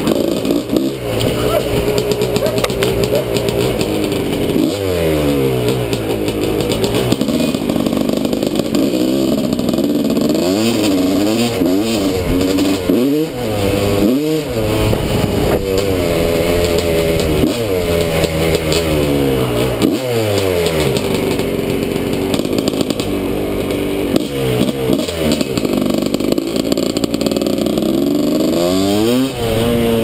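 Suzuki RM250 dirt bike's single-cylinder two-stroke engine under way, revving up and dropping back over and over as the throttle is worked. Its pitch sweeps up and down many times throughout.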